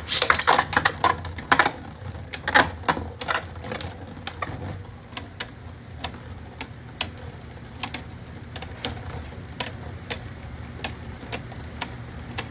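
Two Beyblade Burst spinning tops battling in a plastic stadium: a quick run of sharp clicks as they clash during the first couple of seconds, then sparser single clicks every half second or so as they keep knocking against each other and the stadium walls.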